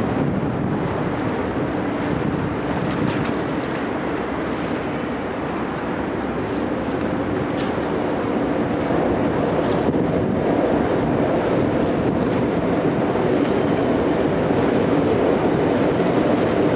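Steady drone of a boat under way, its engine running under the rush of water along the hull, with wind buffeting the microphone; it grows slightly louder about halfway through.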